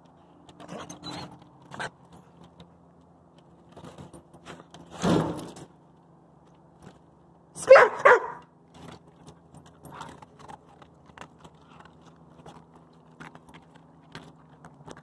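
Wolfdogs' collar tags jangling as they shift about on a wooden deck, with a louder scuff about five seconds in and two short barks close together about eight seconds in.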